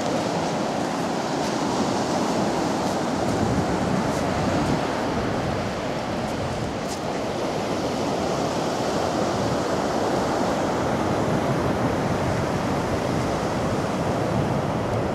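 North Sea surf breaking and washing up a sandy beach: a steady rush of waves that swells and eases gently.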